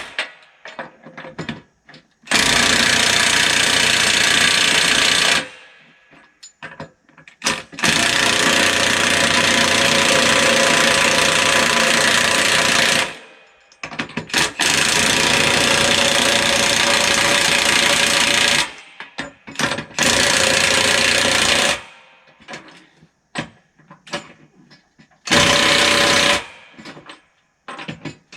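Milwaukee 1-inch cordless impact wrench hammering lug nuts onto a skidder's dual wheel, in five long bursts of about one to five seconds each with short pauses between.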